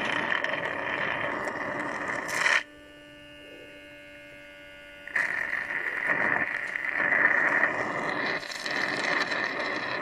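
Small home-made electric suction pump drawing honey out of stingless-bee honey pots through a thin tube: a steady motor hum under a loud rushing suction noise, which drops away for about two and a half seconds in the middle, leaving only the quieter hum, then comes back.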